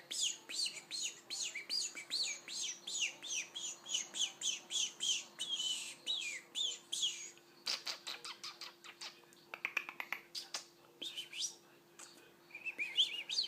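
Pet bird chirping rapidly, a fast run of short falling chirps, then a stretch of scratchy clicking calls about halfway, then a few more chirps near the end.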